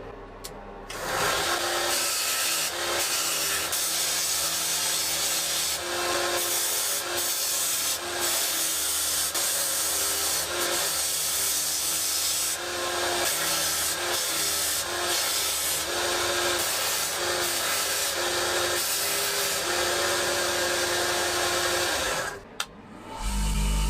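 Abrasive rubbing on a rusty knife blade, as in sanding off rust: a loud rasping scrape that starts about a second in and stops shortly before the end.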